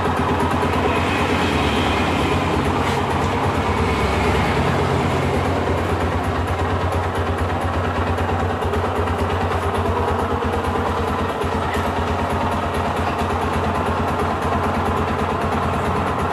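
Yamaha Scorpio's single-cylinder four-stroke engine idling steadily.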